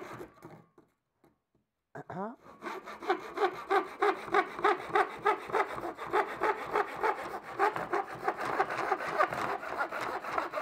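Hand saw with a wooden handle cutting through a wooden board in quick, even back-and-forth strokes. The sawing breaks off about half a second in and starts again about two seconds in.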